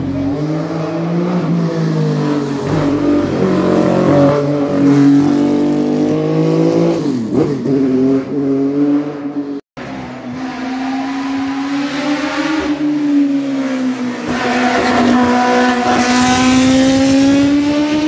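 Racing car engine running hard, its revs sinking and climbing over several seconds as it changes gear. The sound breaks off for a split second about ten seconds in, then the engine carries on.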